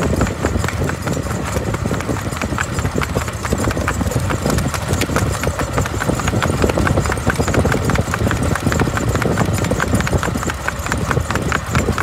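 Kathiyawadi horse's hooves clip-clopping in a steady, even run of hoofbeats while it is being ridden.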